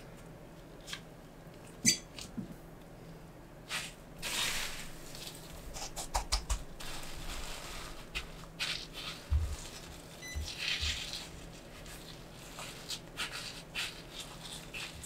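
Hand-breading a cheese-stuffed slice of Spam: soft squishing in the beaten egg, then rustling and crunching of panko breadcrumbs as gloved hands press them onto the slice, with scattered light clicks and one sharp click about two seconds in.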